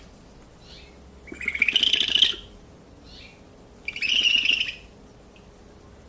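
Great horned owl giving two loud, harsh calls, each about a second long, the second coming about two seconds after the first, with fainter short squeaks before and between them.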